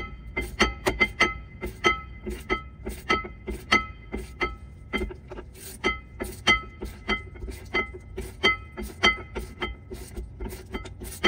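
Background music: quick plucked, piano-like notes at a few recurring pitches over a low bass.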